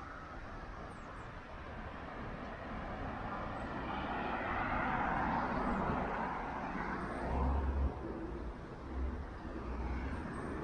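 A road vehicle passing on the street, its tyre and engine noise swelling to a peak about halfway through and then fading away. A few short low thumps follow near the end.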